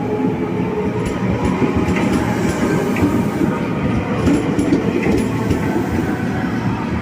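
Train running on the station tracks: a steady rolling rumble with irregular clacks of the wheels passing over rail joints.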